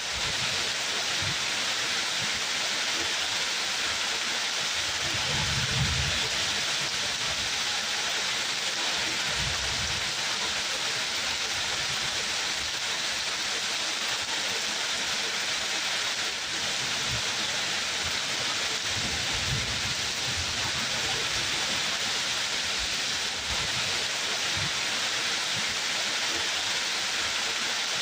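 Steady rain falling in an even, unbroken hiss, with a few brief low rumbles underneath.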